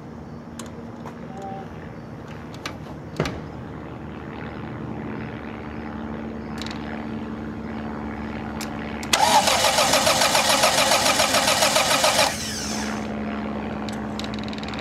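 AeroVee 2180 aircraft engine turned over by its electric starter for about three seconds, a loud fast-pulsing whirr that stops abruptly without the engine catching: a first-start cranking attempt. Before it come a few sharp clicks and a steady low hum that starts a few seconds in and carries on after the cranking.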